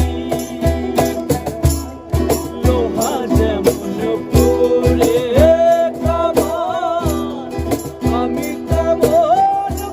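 Background music: a song with a singing voice over a steady beat and percussion.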